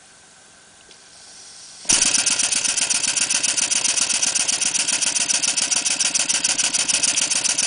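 Clarkson model double-acting vertical steam engine, running on compressed air, starting up: a faint hiss as the air comes on, then about two seconds in it catches and runs forward in full gear with a loud, rapid, even beat of air exhausting from the cylinder.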